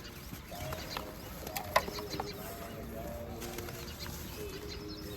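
Birds calling in short, low, level-pitched notes over a steady background hiss, with a few sharp clicks, the loudest just under two seconds in.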